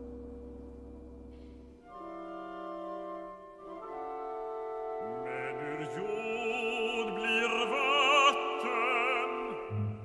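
Contemporary classical music for orchestra and voices: a held orchestral chord fades, new sustained chords enter about two seconds in, and from about halfway a sung line with wide vibrato comes in over them, swelling and then breaking off near the end.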